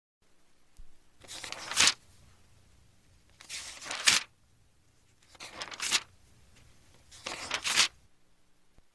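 Paper book pages turned by hand four times, about two seconds apart; each turn is a short rustle that swells and ends in a crisp flick as the page falls.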